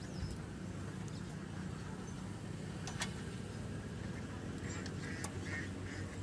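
A metal spoon knocking against a cooking pot a few times as food is stirred and ladled, over a steady low hum. A few short animal calls come near the end.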